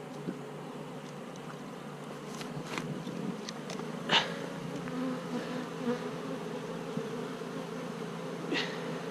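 A package of honeybees buzzing in a steady hum, with a few brief sharp sounds, the loudest about four seconds in.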